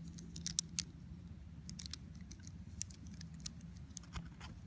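Scattered light clicks of a Leatherman Crunch locking-pliers multi-tool being handled, over a faint steady hum.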